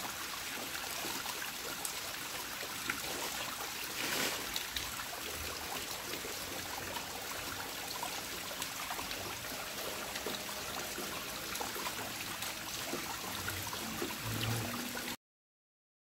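Small waterfall: steady rush of running water, cutting off suddenly near the end.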